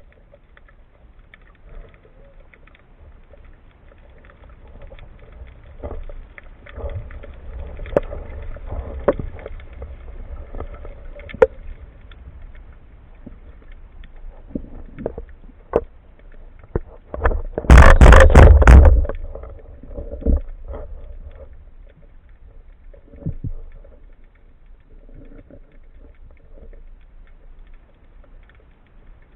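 Underwater sound of a breath-hold spearfishing dive: a faint low rumble with scattered sharp clicks and knocks, and one loud, rough burst lasting about a second and a half a little past the middle.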